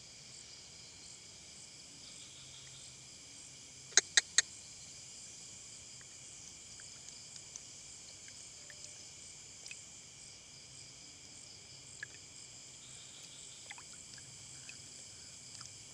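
Steady chorus of night insects such as crickets, a high continuous trilling. About four seconds in, three sharp clicks in quick succession stand out as the loudest sound.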